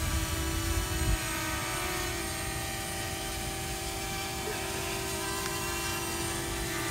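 DJI Mavic Mini quadcopter's propellers whining steadily in flight just after take-off, with some wind rumble on the microphone in the first second.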